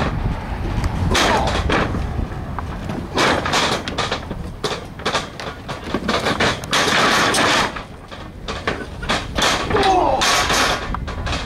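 Professional wrestlers hitting each other and landing on the ring canvas: a run of sharp slaps and thuds at irregular intervals, with a brief shout near the end.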